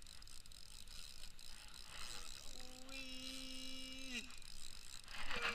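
Faint mechanical clicking of a spinning reel as a hooked fish is played on a bent rod. A steady pitched tone sounds for about a second and a half midway, dropping in pitch as it ends, and a louder burst of sound comes near the end.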